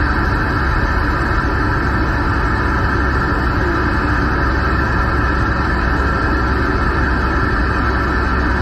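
Steady engine and road drone heard inside a vehicle's cab while it cruises at highway speed, with an even hiss on top.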